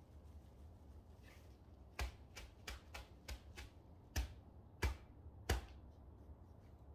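A plastic flower pot knocked repeatedly against a plastic basin during repotting: about nine short dull knocks over three and a half seconds, the last three the loudest.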